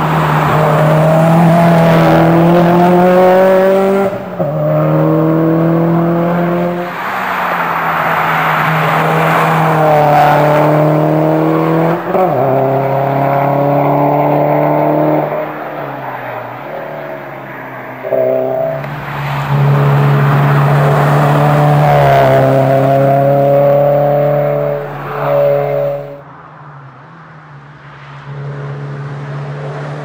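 Subaru Impreza rally car's turbocharged flat-four engine pulling hard up through the gears at full throttle, its note climbing and dropping back at each gear change, over and over. Quieter near the end as the car moves away.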